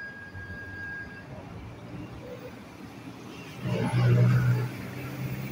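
Electric commuter train pulling away from the platform. Its low hum and rush swell about three and a half seconds in as the cars slide past close by. A brief high steady tone sounds near the start.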